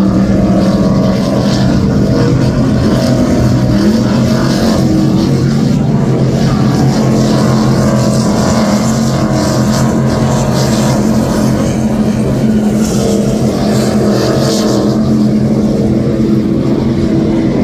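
Offshore racing powerboats running flat out past the spectators, their engines making a loud, steady drone.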